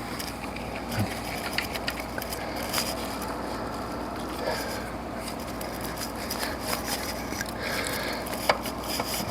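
Scattered light clicks and scraping of metal parts being handled as a bolt is worked into an alternator mounting bracket.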